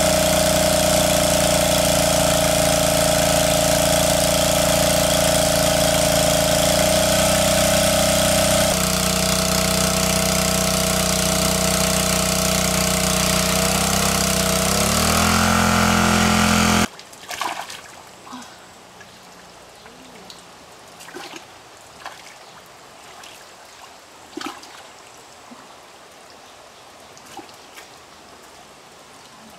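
Engine of a water pump running steadily while it pumps water out of a pond through a hose; its pitch wavers and then the sound cuts off suddenly about two-thirds of the way through. After that, faint splashes and drips of shallow muddy water.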